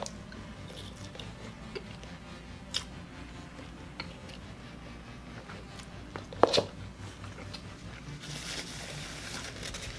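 Close-up sounds of a man eating a burger: chewing with small wet clicks. There is one sharp, louder knock about six and a half seconds in, and a paper napkin rustles against his mouth near the end.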